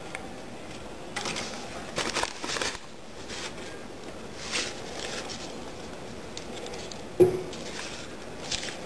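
Paper banknotes rustling and crinkling in short bursts as a hand handles them at a halted Cummins JetScan currency counter, which is flagging a note for the operator. One sharp knock comes about seven seconds in.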